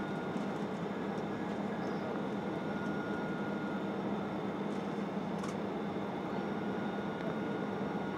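Steady cabin drone of an Airbus airliner in flight on approach: engine and airflow noise with faint steady whines on top.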